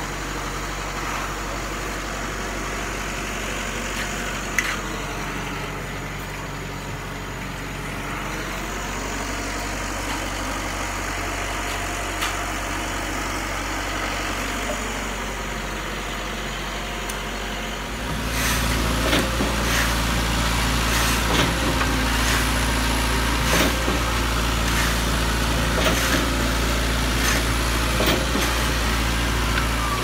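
Concrete pump truck's engine running steadily. About 18 s in it becomes louder and deeper, with scattered knocks over it.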